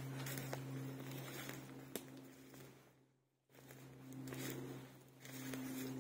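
Faint footsteps and rustling through dry leaf litter and undergrowth, with a few light snaps and a steady low hum underneath. The sound drops out briefly about halfway.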